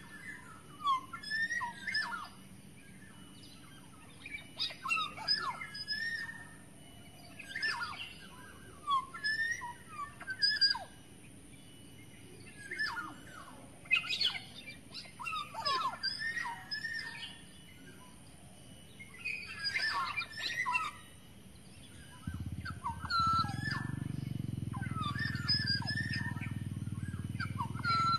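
Black-naped oriole (kepodang) singing a lure song: repeated short phrases of fluty whistles mixed with sharper high notes, a phrase every two to three seconds. A steady low hum comes in about 22 seconds in.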